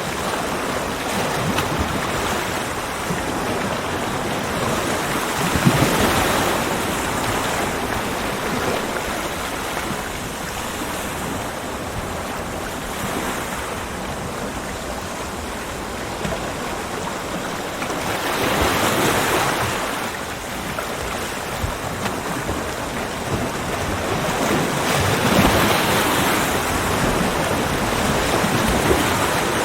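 Ocean waves breaking on a beach, with a steady wash of surf. Three waves swell and break, about 6 s, 19 s and 25 s in.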